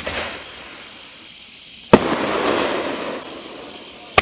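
Consumer firework cake firing: a shot launches with a sharp pop, about two seconds later the shell bursts with a loud bang followed by about a second of crackling, and the next shot launches near the end.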